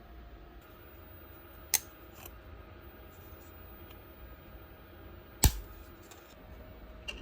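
Two sharp clicks, about four seconds apart, over a faint steady hum.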